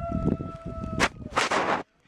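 A rooster crowing, its long final note held steady for about a second. It is followed by a sharp crack and short bursts of rustling noise.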